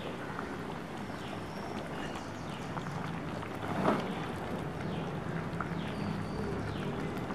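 Thick dried-anchovy curry simmering in a clay pot as a wooden spatula stirs and lifts it, with one louder stir about four seconds in.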